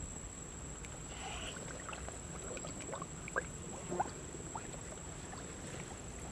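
Small water plinks at the surface of still water, a cluster of quick rising plinks and two sharper clicks about halfway through, over a low steady rumble.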